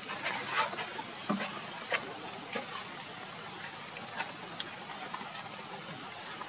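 Outdoor ambience: a steady hiss with scattered soft clicks and rustles, and a few brief high rising chirps about halfway through.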